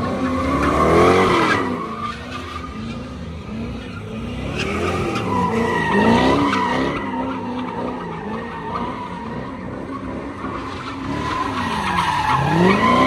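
A car spinning donuts on asphalt: its engine revs up and down in three big swells, about a second in, around six seconds and near the end, over a steady tyre squeal.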